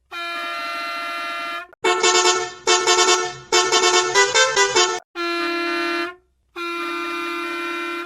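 A series of bus horn blasts. First a long steady blast, then two shorter warbling blasts, then a quick run of changing notes like a musical horn. Two more steady blasts follow, each with a short gap before it.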